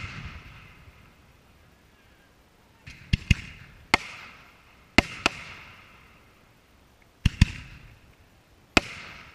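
Aerial fireworks shells going off: about nine sharp bangs, mostly in close pairs and threes, starting about three seconds in. Each bang trails off in a fading echo.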